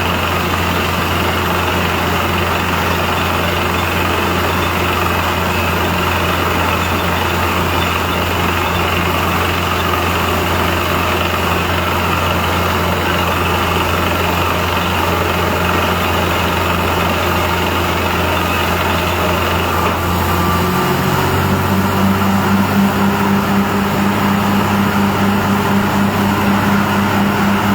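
Compressor machine running steadily with a low hum; about twenty seconds in the hum drops slightly in pitch and the machine gets a little louder, as if it is taking on more load.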